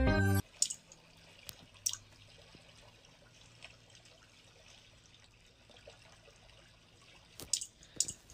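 Background music cuts off half a second in. Then comes quiet room noise with a faint low hum and a few short soft taps and clicks: a couple early on and a small cluster near the end.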